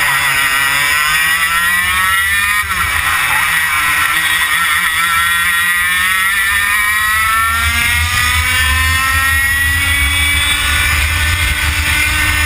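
Onboard sound of a 100cc two-stroke racing kart engine at high revs. The revs drop sharply about two and a half seconds in, then climb slowly and steadily for most of the rest.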